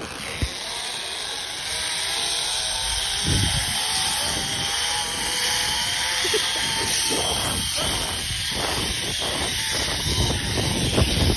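Zip-line trolley running along its steel cable, its pulleys giving a whine that slowly drops in pitch, under loud wind rushing over a body-worn microphone. The sound starts suddenly as the ride begins, and wind buffeting thumps join it in the second half.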